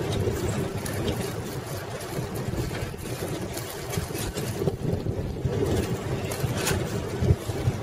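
Wind rumbling on the microphone of a camera mounted on a 1995 Schwinn Classic Cruiser bicycle, with the tyres running on pavement and a few sharp clicks and rattles from the bike.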